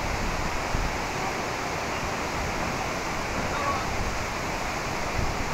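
Steady rush of fast-flowing river water below the bridge, even and unbroken, with faint voices mixed in.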